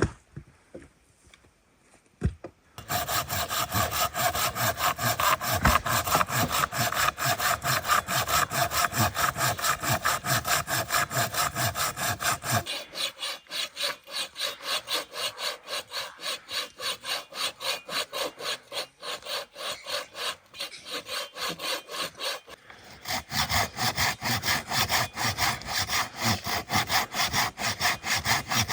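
Rhythmic back-and-forth rasping strokes, a few every second, starting about three seconds in. The strokes lose their low, heavy part about halfway through and regain it near the end.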